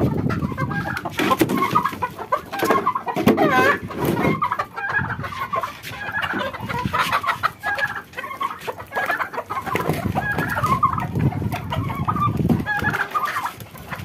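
A flock of baladi hens clucking, many short calls overlapping without a break, as they are let out of the coop to be fed.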